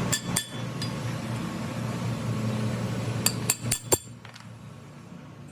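Metal clinking on metal: two sharp clinks near the start and a quick run of four about three seconds in, over a steady low machine hum that cuts off about four seconds in.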